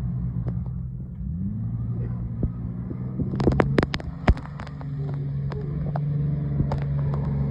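V6 Tracker's engine running, revving up about a second and a half in and then holding at the higher speed. Several sharp clicks or knocks come near the middle.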